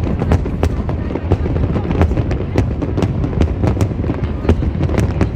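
Aerial fireworks bursting in a rapid, dense barrage: a string of sharp bangs, several a second, over a continuous low rumble of overlapping explosions.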